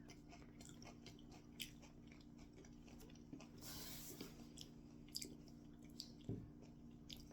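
Faint crunching as a tortilla chip is bitten and chewed, with a few sharp crunches scattered through and a short hiss just before halfway. A steady low hum runs underneath.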